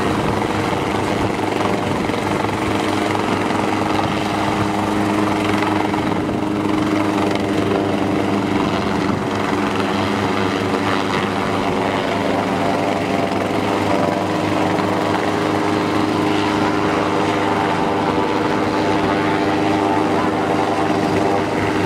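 A small piston-engine helicopter's engine and rotor run steadily as it lifts off its dolly and hovers.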